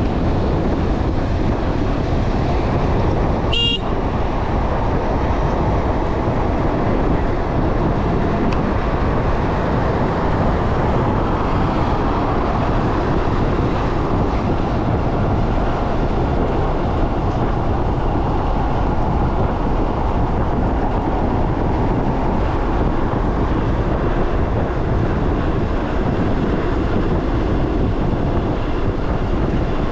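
Steady rushing wind and road noise from riding an e-bike, wind buffeting the microphone, with one short high-pitched tone about three and a half seconds in.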